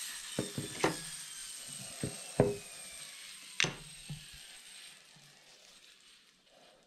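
A pen-style rotary carving tool switched off and whining down, its pitch falling away over about three seconds. Half a dozen sharp knocks and clicks come in the first four seconds as the tool is set down and a bronze sword with a wooden grip is handled on a wooden workbench.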